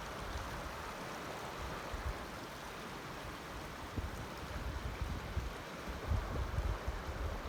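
Water running in the headwaters of the Colorado River, here no bigger than a stream, making a steady rushing. Wind gusts buffet the microphone with uneven low rumbles.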